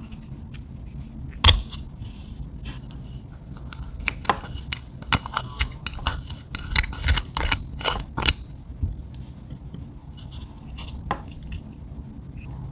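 Slim metal spatula scraping and clicking against a small plastic eyeshadow pot as it digs out chunky glitter flakes. There is one loud click about a second and a half in, then a quick run of sharp clicks and scrapes in the middle, and a few lighter ones near the end.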